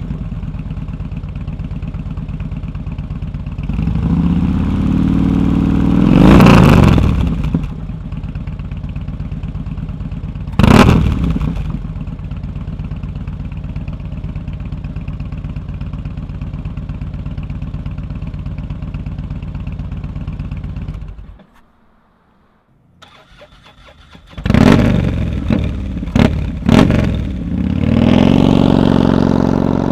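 Harley-Davidson bagger's V-twin idling through a Bassani Road Rage B4 2-into-1 megaphone exhaust, with a rising rev about four to seven seconds in and a sharp blip near eleven seconds. The sound cuts out briefly a little past twenty seconds, then the engine is blipped several times and revs rise as the bike begins to move near the end.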